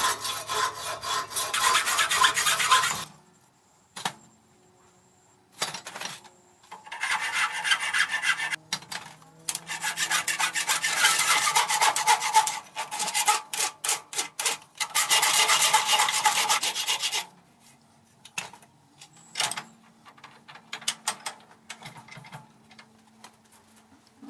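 Hand filing on the compound swivel part being cleaned up: fast rasping strokes in spells of a few seconds, with short pauses between them, then only scattered single strokes near the end.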